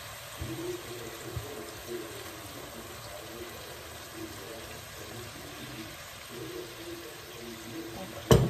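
White wine pouring from a bottle into a hot pan of shrimp, a steady stream of liquid splashing in. A sharp knock near the end.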